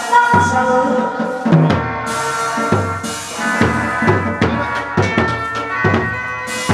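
Hát bội accompaniment music: drums striking a steady rhythm under sustained melodic instrument tones.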